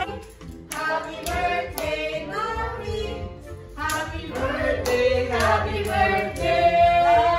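A group of people singing together, with hand claps keeping time.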